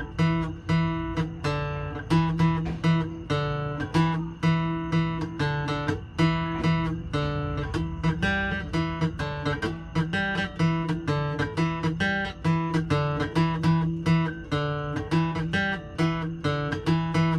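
Guitar strummed in a steady rhythm, chord after chord ringing out.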